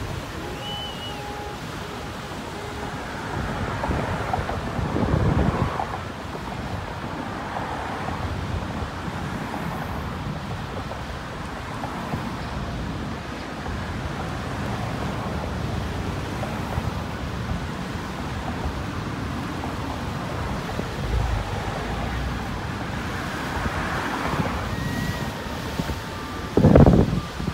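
Wind buffeting the microphone over a steady wash of many motorboats running at speed, their engines and wakes blending into one drone, with a loud gust near the end.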